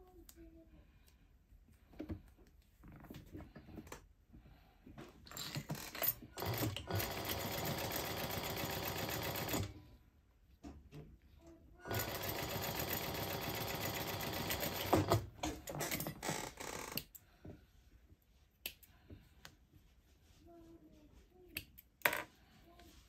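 Juki industrial sewing machine running in two steady stitching runs of a few seconds each, with a pause between them. Clicks and handling of the fabric and tools come before, between and after the runs, with one sharp click near the end.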